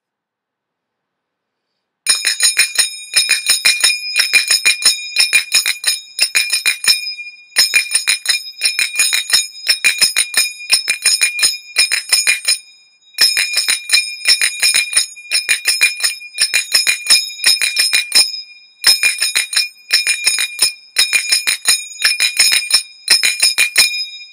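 Finger cymbals (zills) struck in fast, ringing runs. They start about two seconds in and play four phrases, each followed by a short break: the belly-dance 'five fives' pattern played at speed.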